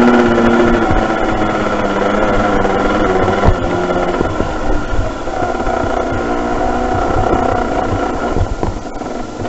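Yamaha TZR 50's two-stroke single-cylinder engine running as the bike rides a rough dirt track, its revs easing down over the first few seconds. There is a sharp knock about three and a half seconds in, and the engine gets quieter near the end.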